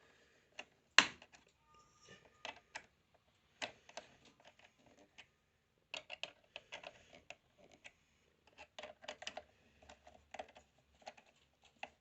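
Irregular small clicks and taps of hands working on PC components and cables inside a computer case, with one sharp click about a second in.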